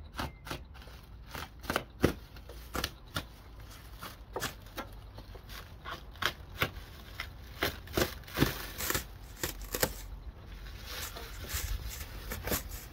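Black plastic wrapping being pulled and torn off a new pressure washer: irregular crinkling with sharp crackles, turning into a denser rustle near the end.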